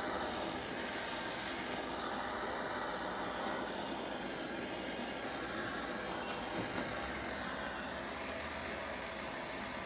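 Propane torch flame hissing steadily while it heats a cast iron manifold. About six seconds in, and again a second and a half later, a handheld infrared thermometer gives a short high beep as it takes a temperature reading.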